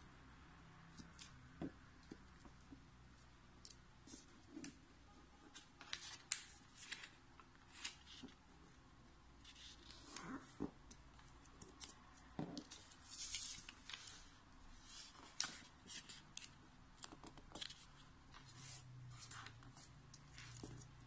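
A square of origami paper being folded and creased by hand: scattered short rustles and scrapes as fingers press and slide along the folds.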